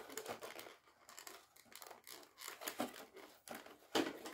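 Plastic and cardboard doll-accessory packaging being handled and pulled apart: crinkling and tearing with many small clicks, and one louder sharp crack about four seconds in.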